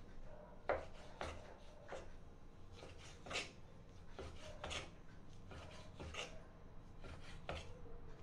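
Large kitchen knife skinning piau fillets on a wooden cutting board: short scraping strokes of the blade sliding between flesh and skin and against the wood, about two a second at an uneven pace.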